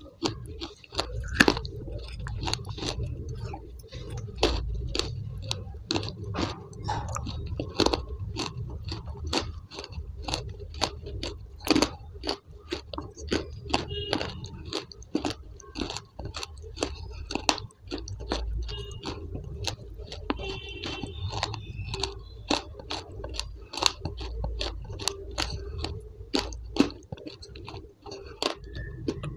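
Close-miked chewing and crunching of food, sharp crunches coming about two or three times a second.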